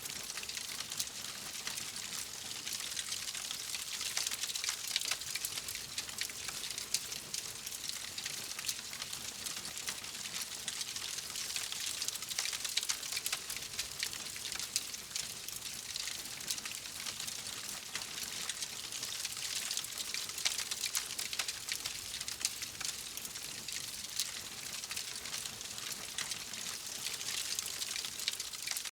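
Wood fire crackling steadily in a fireplace, a dense run of small pops and snaps over a soft hiss.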